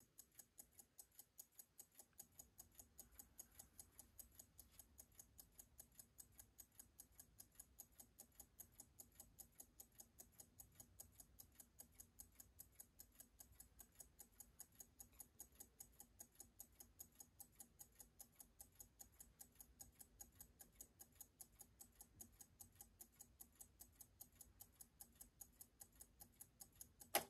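Kieninger mechanical clock movement ticking faintly, in a quick, even rhythm of escapement ticks, with one louder click near the end.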